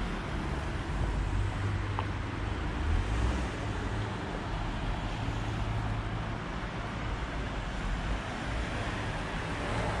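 Road traffic on a city street: a steady rumble of passing cars, with a low engine hum for several seconds in the middle.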